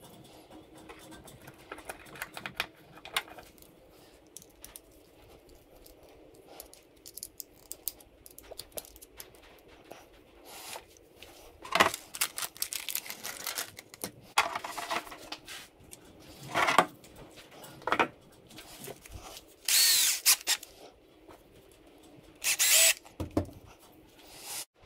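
Small screws, servo parts and hex drivers being handled on a wooden workbench, with scattered light clicks and rattles. In the second half come several louder bursts, each about a second long.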